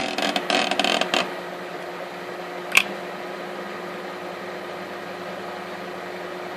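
Homemade 220 V spot welder heating an ordinary screw: about a second of crackling at the start, a sharp click a little before three seconds, then a steady transformer hum.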